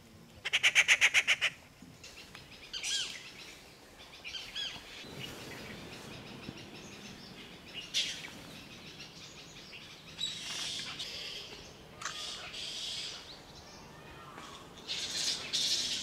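Rufous treepie giving a loud, rapid rattling call of about ten notes, lasting about a second, just after the start. Later come several bursts of shrill, squeaky chattering from a roost of Indian flying foxes.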